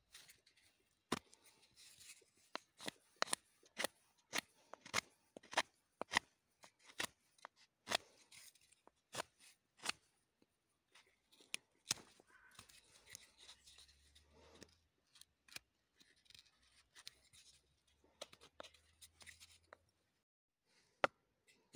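A knife shaving dry wood off the outside of a small hand-held wooden cup: a series of crisp slicing snaps, about one a second, with faint scraping between the cuts.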